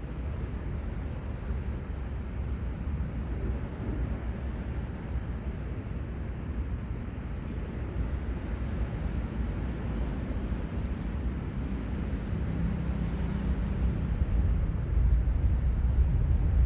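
Low rumble of a distant airplane by the sea, growing louder near the end as it comes closer.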